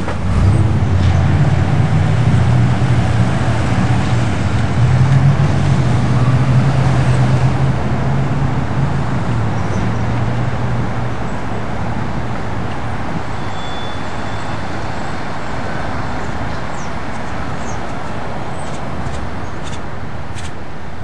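Car engine and road noise while driving, with a strong low engine hum for the first ten seconds or so that then eases into a steadier, quieter road rumble.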